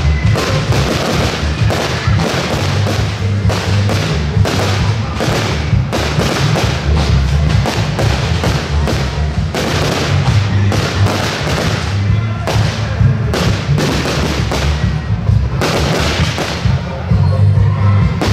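Fireworks display: aerial shells bursting in rapid succession, a dense run of bangs and crackles several times a second, over loud music.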